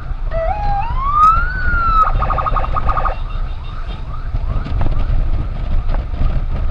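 Electronic emergency siren: a wail that climbs in steps and then eases down a little, followed by about a second of rapid pulsing two-tone, over a low rumble of wind and road noise.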